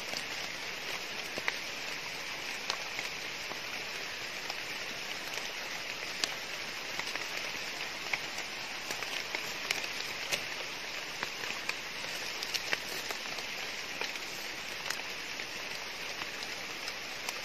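Light rain falling on forest leaves: a steady hiss with scattered small drip ticks.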